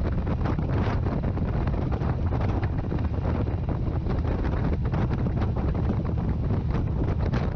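Wind buffeting the microphone on a moving Harley-Davidson touring motorcycle, gusting steadily, with the bike's V-twin engine running underneath at a steady cruise.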